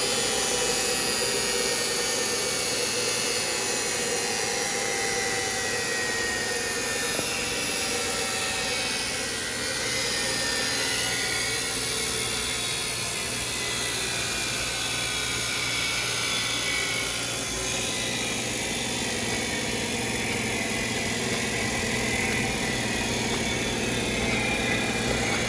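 Heald 273A universal internal grinder running, a steady high-pitched machine whine with a lower hum beneath it.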